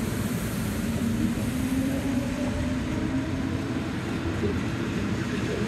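EP07 electric locomotive pulling a passenger train away from the platform: a steady low hum and rumble as the locomotive and then the first coach roll slowly past on the rails.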